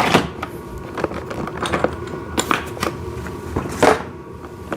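Hard plastic toy parts clicking and knocking together as they are handled and set down, a scatter of separate taps with two louder knocks, one at the start and one near the end.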